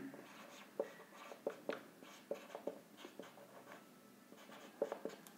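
Marker pen writing on a whiteboard: a string of faint, short strokes and taps as letters are written.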